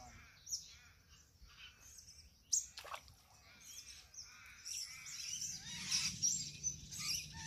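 Birds chirping and calling, with a single sharp click about two and a half seconds in. The background noise swells over the last couple of seconds.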